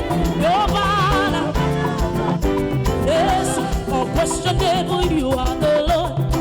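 Upbeat praise and worship music from a church band, with a steady driving beat and a wavering lead melody line over it.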